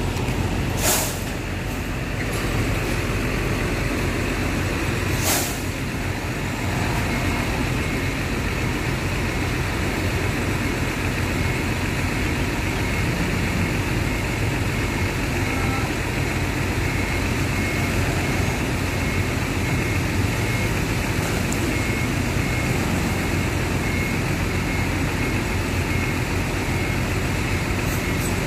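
Intercity coach's diesel engine running steadily as the bus drives slowly up and turns in close, with two short sharp air hisses about one and five seconds in. A faint high beep repeats regularly through most of the rest.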